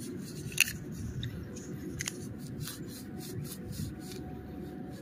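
Blade of a hand digger cutting into grass turf: a run of crisp snips and crunches as it slices through grass and roots, with one sharper click about half a second in.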